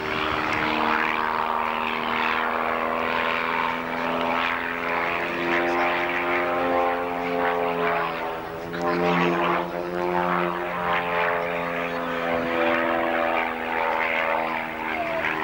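Single-engine propeller aircraft flying aerobatics, its engine drone holding steady while the pitch shifts up and down as it climbs and turns.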